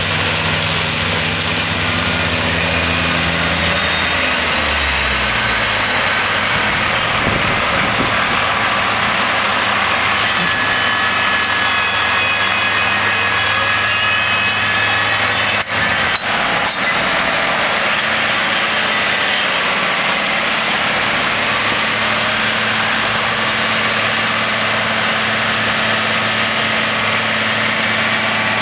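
Case tractor engine running with a trailed Taarup forage harvester working the grass swath; the engine note drops a few seconds in. Then a Case tractor pulls a silage trailer past close by, its engine running steadily, with a whine and a couple of sharp clicks about halfway through.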